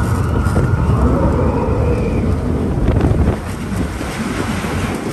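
Roller coaster train rumbling along its track, with wind buffeting the microphone. The rumble drops a little about three seconds in.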